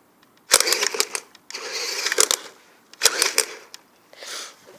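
RC Wheely King truck's electric drivetrain run in four short bursts, gears whirring with rapid clicking. The clicking comes from a worn differential that needs replacing.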